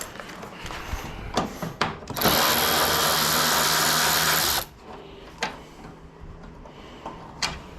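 Power drill running steadily for about two and a half seconds, starting about two seconds in, working on the fixings of the van's front grille. Sharp clicks and knocks of tools and trim come before and after it.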